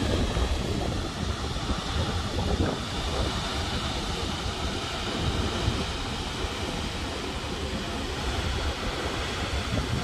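Steady rushing roar of a tall waterfall heard across a valley, with wind buffeting the microphone in low gusts that are strongest in the first few seconds.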